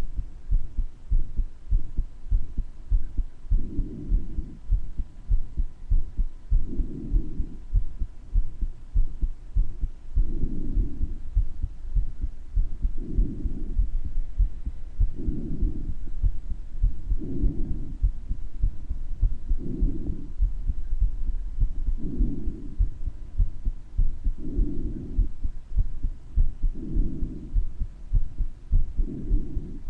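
Heartbeat with a heart murmur, the beats thudding steadily and low. A breath sound swells in about every two and a half seconds.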